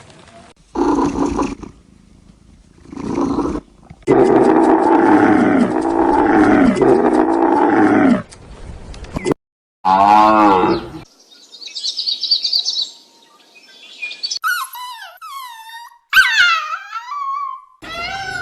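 A run of different animal calls one after another: a few short calls, then a long stretch of repeated low calls, a single call, high chirping, and several falling whistled calls near the end.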